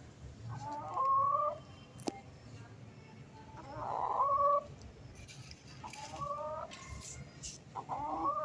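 A chicken calling four times, each call a drawn-out pitched cluck lasting up to about a second, spaced a couple of seconds apart.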